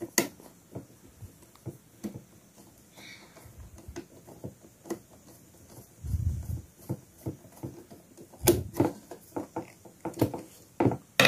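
Scattered small clicks and taps of a screw and tools being handled on the plastic housing of an electric drip coffee maker as a screw is put back, with a low dull bump about six seconds in and a quick run of louder clicks around eight and a half seconds in.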